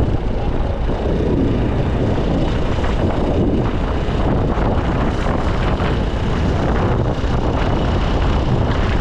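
Steady rush of wind over the microphone on a moving motor scooter, with the scooter's running and road noise underneath.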